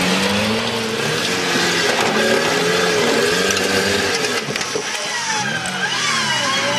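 Engine of a lifted rock-crawling pickup truck revving up and down under load as it crawls over rock ledges, its pitch rising and falling again and again.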